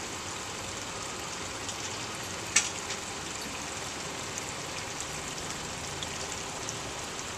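One sharp metallic clank about two and a half seconds in, over a steady hiss. The clank is the aluminium boat davit knocking as it is unpinned at its quick-release pin and lifted free of its deck socket.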